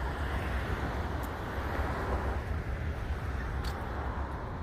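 Steady low rumble and hiss of a car driving on the road.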